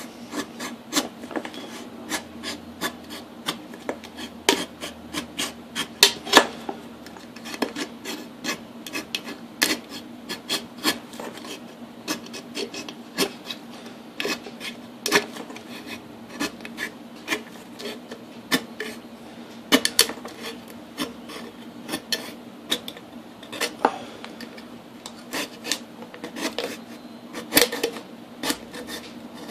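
The top of a metal can being cut out with a hand tool worked around its rim: irregular scraping and sharp clicking strokes, about one or two a second, as the metal is cut.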